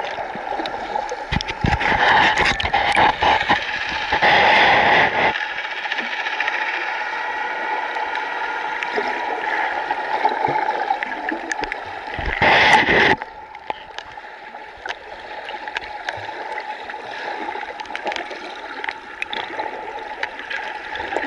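Muffled water noise heard by a camera held underwater while snorkeling: a steady wash with scattered faint clicks. Three louder rushes of splashing and bubbling come about two seconds in, four to five seconds in, and around twelve seconds; the last cuts off suddenly and the sound is quieter after it.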